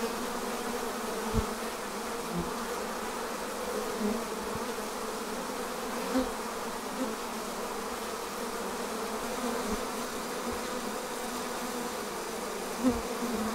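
Steady hum of a dense honeybee colony massed on the outside of its hive, with a few brief louder buzzes. The colony is heavily bearded and preparing to swarm.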